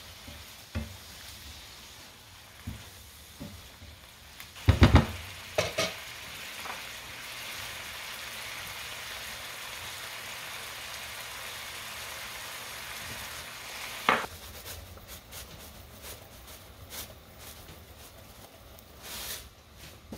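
Shrimp and halved cherry tomatoes sizzling in oil in a nonstick frying pan, with a steady hiss through the middle. Loud knocks from the pan or a utensil about five seconds in and another near fourteen seconds, then a run of quick small clicks and taps.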